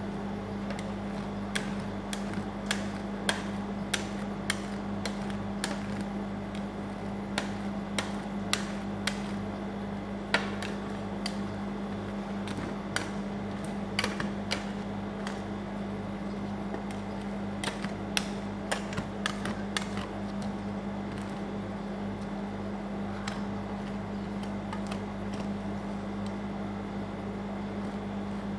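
Metal spatulas tapping and scraping on the frozen steel plate of a rolled-ice-cream machine, sharp clicks coming every second or so, most of them in the first two thirds and fewer near the end. Under them runs the steady hum of the machine's refrigeration unit.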